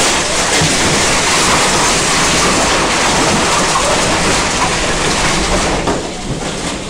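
Tornado wind: a loud, steady rushing noise across all pitches, like a passing train. It eases a little about six seconds in.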